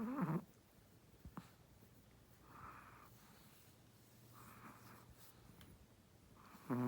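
Pregnant Shih Tzu snoring softly, with faint breathy snores about every two seconds. A short pitched vocal sound comes at the start and another near the end.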